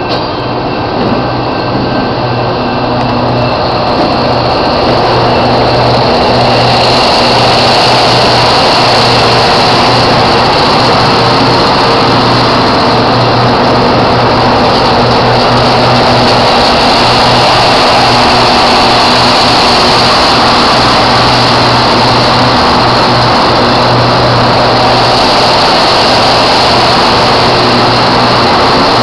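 Rail grinder train passing close by at a grade crossing, its engines running under a loud, steady noisy rumble that builds over the first several seconds and then holds.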